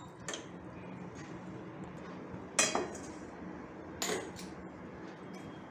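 Two sharp metallic clinks of kitchen utensils, a vessel or spoon handled, about a second and a half apart, each with a short ring.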